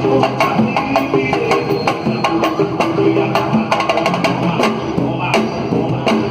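Live samba music: a percussion group of drums and sharp, clicking hand percussion playing a fast, dense rhythm over pitched instruments.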